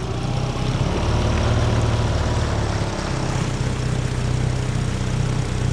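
Small outboard motor running steadily below full throttle, pushing the boat through shallow marsh water. Its tone dips briefly about halfway.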